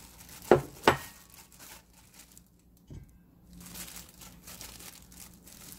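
Clear plastic disposable glove crinkling as a hand shakes soft pepper leaves loose over a stainless steel bowl. There are two sharp taps close together near the start and a smaller one midway.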